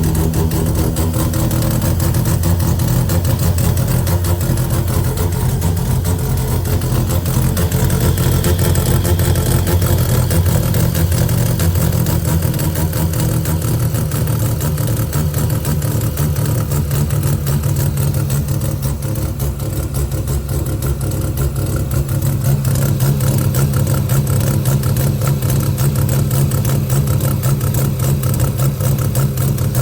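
Bridge-ported Mazda 12A rotary engine idling unevenly with a misfire, which the owner suspects may be electrical but is not sure.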